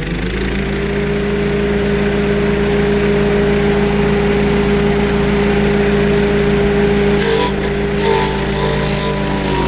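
Stump grinder's petrol engine running steadily at high speed with no cutting noise. From about seven seconds in, the engine note dips under load and irregular chipping noise starts as the cutter wheel bites into the stump again.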